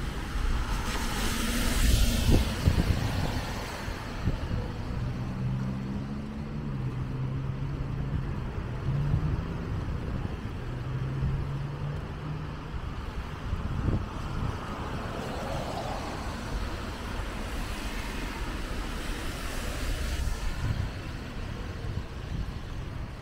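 Downtown street traffic on wet roads: a car passes with a rising and falling hiss of tyres about two seconds in, and another passes near the end. In between there is a vehicle engine's low, steady hum.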